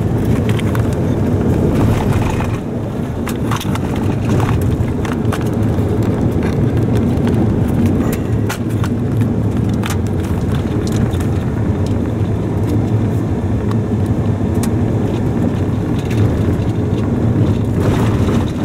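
Car driving on a gravel road, heard from inside the cabin: steady low road and engine noise, with scattered clicks and knocks from the tyres on the loose gravel.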